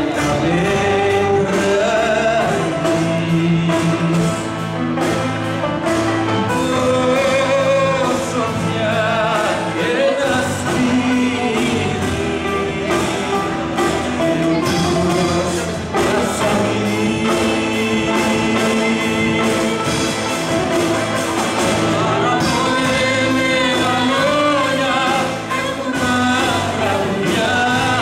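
Live school band performing a Greek song: a girl singing lead into a microphone over bouzouki, bass guitar, electric guitar and keyboard, amplified through a PA.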